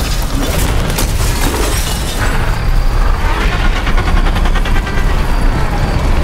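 Film sound effects: glass and debris crashing and shattering as a window bursts in, running on as a continuous heavy din with a deep rumble and a fast rattling midway.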